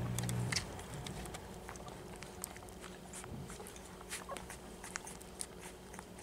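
Litter of two-week-old beagle puppies suckling on their mother, making scattered soft wet clicks and smacks. A low steady hum is loudest at the start and cuts off about half a second in.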